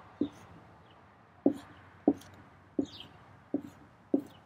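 Dry-erase marker drawing on a whiteboard: six short, sharp strokes spaced about a second or less apart.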